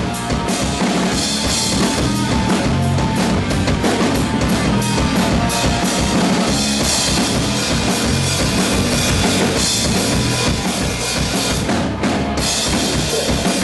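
Hardcore punk band playing a heavy song at full volume: a pounding drum kit with kick and snare under distorted guitars and bass, with a brief break near the end.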